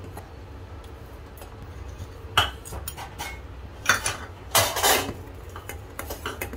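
A steel spoon stirring thin chutney in a stainless-steel saucepan: a few scattered clinks of metal on the pan's wall and bottom, and one longer scrape about two-thirds of the way through, over a low steady hum.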